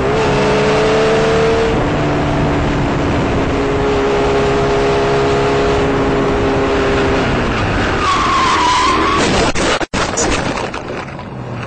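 Motorcycle engine running at steady high revs under heavy wind rush on the microphone. About eight seconds in a tyre squeals briefly under hard braking, and about ten seconds in the sound drops out for an instant before the crash's irregular knocks and impacts.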